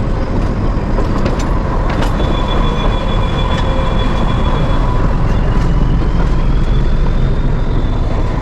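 Nilgiri Mountain Railway train running, heard from on board: a steady rumble of wheels on rail with occasional sharp clicks. About two seconds in, a thin high squeal of metal wheels comes in and holds for several seconds, rising slightly near the end.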